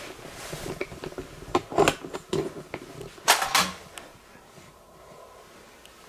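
Handling noise close to the microphone: several clicks and knocks from camera gear being handled, then a louder double rustle a little past halfway as the person moves away.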